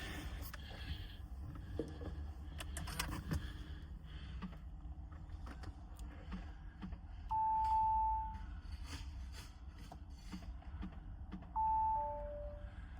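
Audi RS5 dashboard warning chime: one steady tone about seven seconds in, then a two-note falling chime near the end, over clicks and rustling of someone getting into the car. The chimes go with the warnings on the dash: airbag light still on, doors and boot open.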